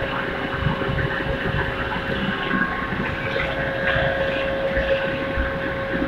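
Induction melting furnace running during a copper pour: a steady high hum over a rumbling industrial drone.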